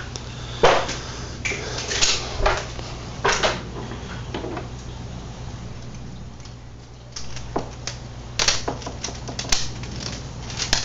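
Pliers clicking and scraping against the metal base of a broken turn-signal bulb as it is worked out of its socket, which is corroded inside. Sharp clicks and rattles come irregularly, about nine in all.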